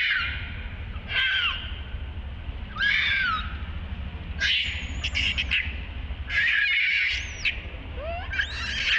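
Baby macaque screaming in short, high, screechy cries, about six of them, each under a second and bending up and down in pitch: the distress cry of an infant refused the nipple by its mother.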